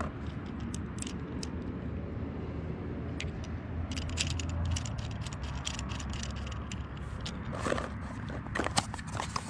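Small plastic clicks, scrapes and rattles of a GoPro handlebar pole mount and camera being handled and fitted together, scattered throughout and busiest midway and near the end, over a steady low rumble.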